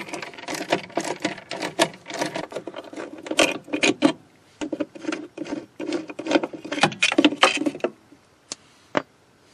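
Hand tool clicking and scraping on metal in quick, irregular strokes while T25 Torx screws are backed out. It goes quiet about eight seconds in, leaving a couple of lone clicks.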